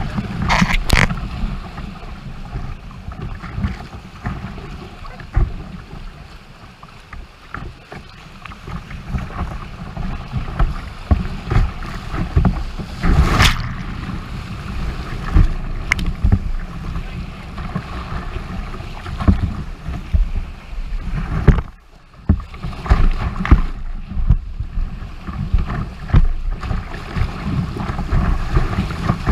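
Whitewater rapids rushing around a kayak, heard from a camera on its bow close to the water. The river's steady rushing carries irregular slaps and splashes of water against the hull and lens, with buffeting on the microphone. The sound drops away briefly about three-quarters of the way through.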